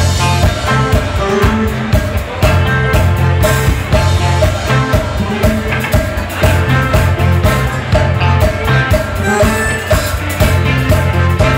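Live funk band playing: electric bass, electric guitars, drum kit, saxophones and congas, with a heavy bass line and a steady beat.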